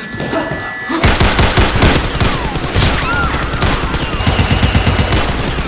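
Rapid automatic gunfire sound effects, starting about a second in, with several falling whistles among the shots.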